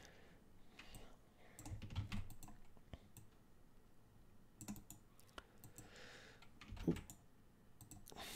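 Faint tapping and clicking of a computer keyboard and mouse, in a few short clusters.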